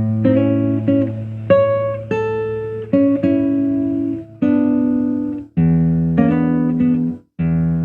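Solo acoustic guitar playing fingerpicked notes with ringing bass notes under them; the notes are cut off briefly a few times, most sharply near the end.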